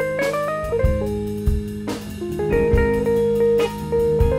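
Live funk band playing an instrumental passage: a lead line with upward bent notes, then long held notes, over electric guitar, keyboards, bass and drums with occasional cymbal crashes.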